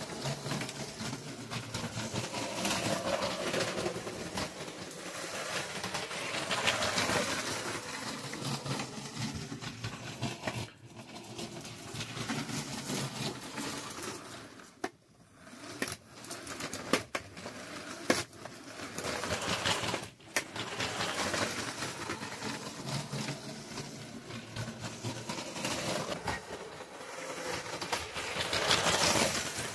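A Lego Power Functions train motor, converted to run on the 9 V powered rails and fitted with metal wheels, whirring as the train runs along the track. The sound swells and fades several times, with a few sharp clicks near the middle.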